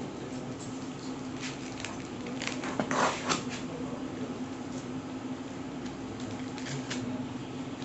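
Papers and packaging being handled and rustled, with scattered crackles and a louder burst of crackling about three seconds in, over a steady low hum.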